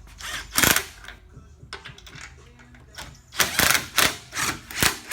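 Short bursts of mechanical clicking and clattering: one just under a second in, then a quick run of them from about three and a half seconds in.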